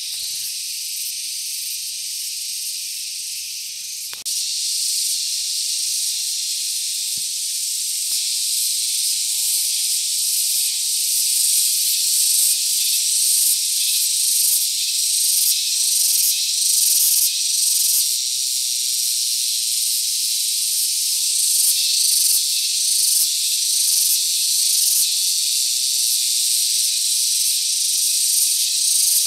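Dense, steady high-pitched chorus of insects filling the air, getting a little louder after about four seconds.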